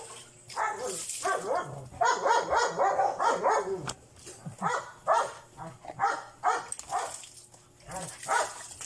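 Dog barking and whining in a string of short pitched calls while it is being lathered in a bath, a dense run of them early on giving way to separate calls about two or three a second.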